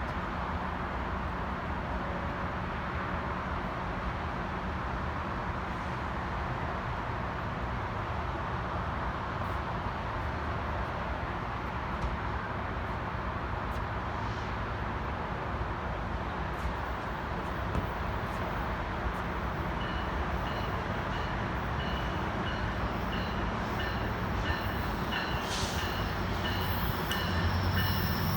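A Metrolink commuter train approaching the station, its rumble growing louder toward the end. A repeating high tone joins about two-thirds of the way through.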